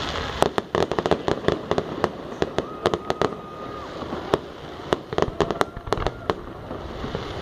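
Fireworks going off: a rapid, irregular string of sharp bangs and pops from low bursting shells.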